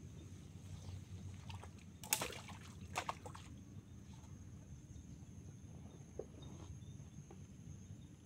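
Shallow water sloshing and splashing as a man wades and shifts about beside a wooden canoe, with a few separate splashes, the loudest two about two and three seconds in.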